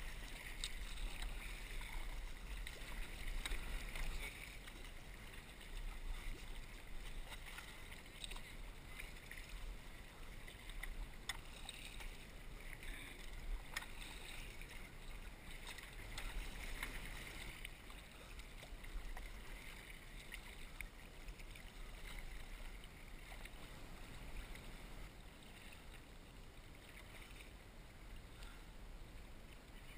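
Water sloshing and splashing around a sea kayak's hull as it is paddled, with scattered small drips and splashes from the paddle blade and a low rumble underneath; a little louder for the first few seconds.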